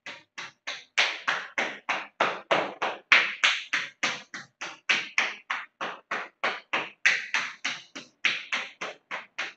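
Bare palms patting quickly along the leg and foot in a steady rhythm of about four light slaps a second. This is yoga self-tapping, striking the body's points gently and close together.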